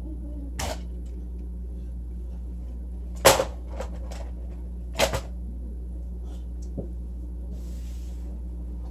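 Scattered sharp knocks and clicks, the loudest about three seconds in and a double knock about five seconds in, over a steady low hum; a brief soft hiss near the end.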